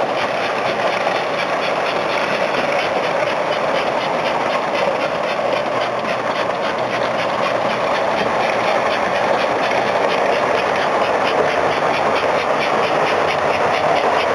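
S gauge model steam locomotive, a custom PRR 4-8-2 M-1, running with a freight train on metal track: a steady motor and wheel rumble that grows a little louder as it runs.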